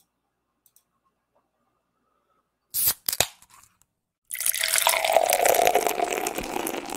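Near silence, then a couple of sharp clicks about three seconds in as a beer is opened, followed from about four seconds in by beer pouring steadily into a glass.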